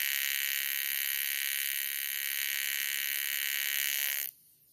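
TIG welding arc running on a cast iron engine block as aluminum bronze filler rod is fed into the crack repair: a steady high-pitched buzz and hiss that cuts off abruptly about four seconds in when the arc is stopped.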